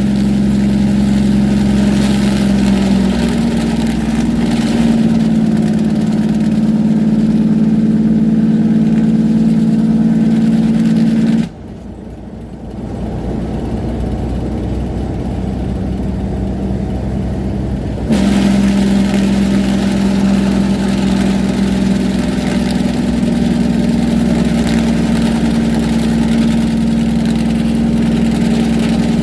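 Diesel semi truck's engine brake running loud and steady, holding the truck back on a long downgrade, its pitch stepping up slightly as the revs climb. About eleven seconds in it cuts off suddenly, leaving only the quieter engine for several seconds, then kicks back in just as abruptly.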